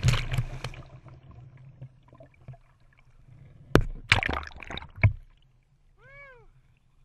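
Water splashing and rushing over an action camera mounted low on the waterski as the skier crashes, loud for about a second and then dying down. A few sharp knocks and splashing follow around four to five seconds in, and a short rising-then-falling tone sounds near the end.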